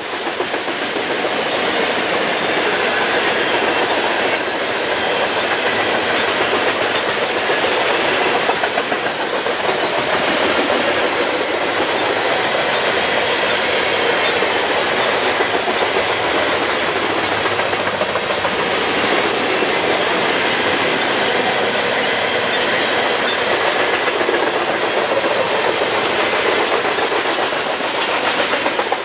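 Freight train of coal hopper cars rolling past: a steady, loud noise of steel wheels running on the rails.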